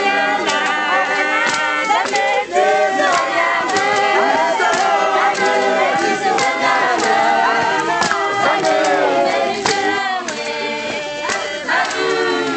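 A choir of many voices singing in parts over a steady percussive beat.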